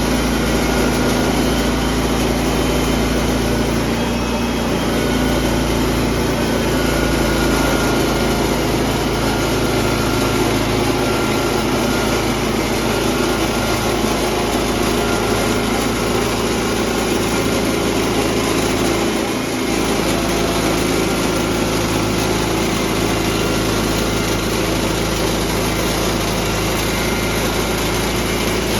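Small gasoline engine of a portable sawmill running steadily under load as 1-inch boards are ripped into batten strips, with a brief dip about two-thirds of the way through.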